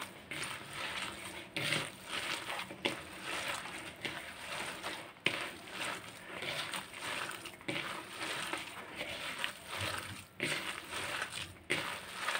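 Bare hands kneading a wet köfte mixture of mashed boiled cauliflower, breadcrumbs, flour and egg in a plastic bowl: soft squelching and rustling in uneven pulses.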